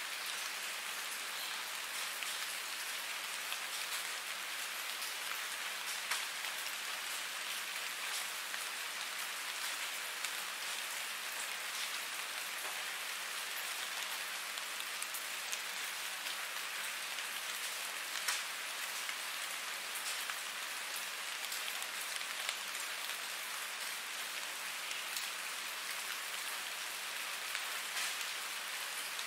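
Steady rain falling on a surface: a dense, even hiss of drops with many small individual drop ticks, without thunder.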